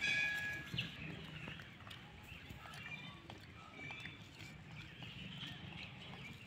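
Short high-pitched animal calls and chirps over quiet outdoor ambience. The loudest call comes right at the start, and brief scattered chirps follow.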